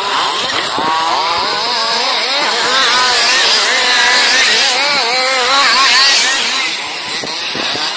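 Several two-stroke petrol engines of large-scale (1/5) off-road RC cars revving up and down as they are driven around the track, their pitches rising and falling and overlapping.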